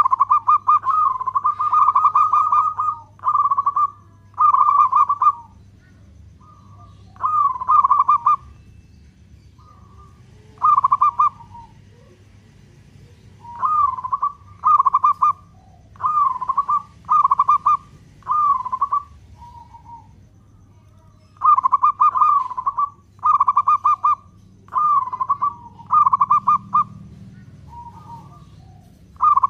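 Zebra dove (local Indonesian perkutut) singing its cooing song. It starts with one long rolling phrase of about three seconds, then gives a run of shorter trilled coos about one to two seconds apart, broken by a few pauses of two to three seconds.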